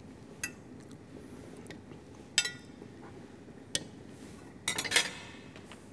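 Metal utensil clinking against a cooking pot: a few separate taps, one louder with a short ring, then a quick run of clinks near the end.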